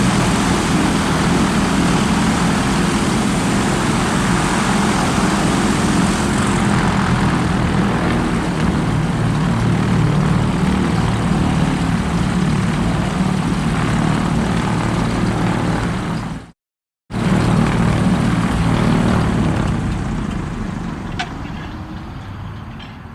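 Blimp's propeller engines running with a steady drone. It cuts off abruptly about sixteen and a half seconds in, returns half a second later, and fades out near the end.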